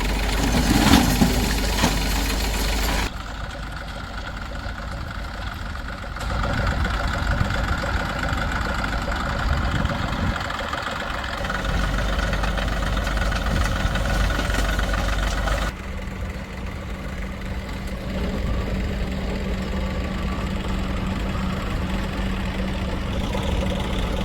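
Diesel engines running steadily, with a brief louder surge about a second in. The sound changes abruptly about three seconds in and again a little past the middle.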